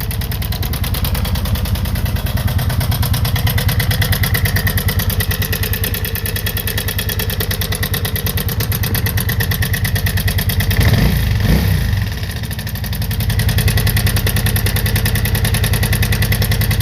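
1987 Kawasaki VN 750 Twin's liquid-cooled V-twin idling with a bright, tinny clatter that sounds like a tractor at idle. The engine note swells briefly about eleven seconds in, then settles back. The owner suspects the cam chain, and hopes it is only a hydraulic lifter.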